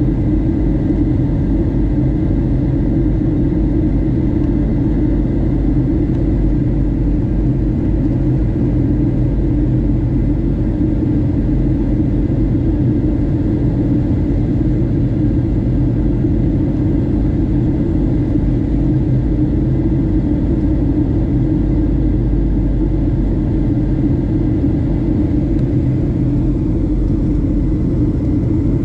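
Steady cabin noise inside a Boeing 737-700 in descent: a low rumble of airflow and its CFM56-7B turbofan engines, with a faint high steady whine above it.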